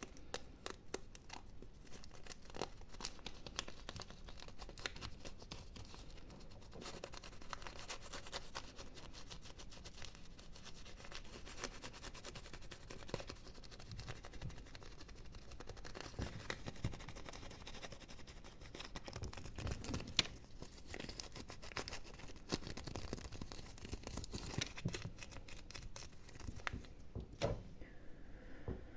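Close-miked ASMR scratching and gripping sounds: a dense, rapid run of small scratches and clicks, with a few heavier knocks now and then.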